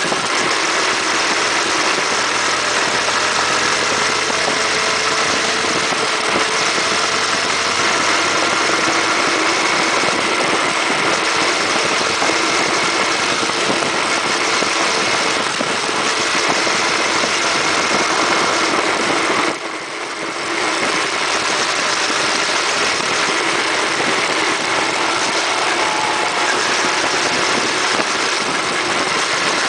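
Yamaha FZ16 motorcycle's 153 cc single-cylinder engine running steadily at highway speed under a dense rush of wind and road noise, heard from the moving bike. About two-thirds of the way through, the sound drops briefly for about a second.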